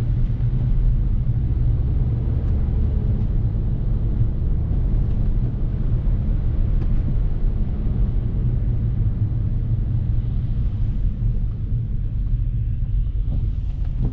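BMW F30 335i's turbocharged inline-six running at a steady, even pitch, heard from inside the cabin, under a continuous low rumble of tyres and road.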